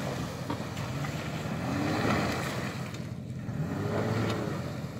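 Honda Ridgeline pickup's V6 engine revving in surges as the truck drives through deep mud, the revs rising and falling twice, with the tyres churning through the mud underneath.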